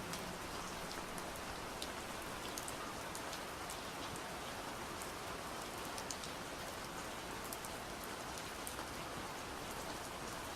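Steady, gentle rain falling, an even hiss with many small drop ticks.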